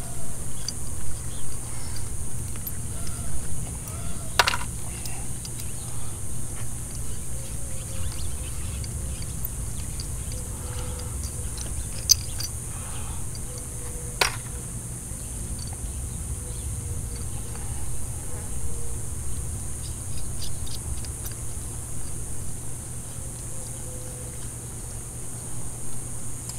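Steady high-pitched insect buzz over a low rumble, with a few sharp metal clicks from loose bolts being handled, the loudest about four and fourteen seconds in.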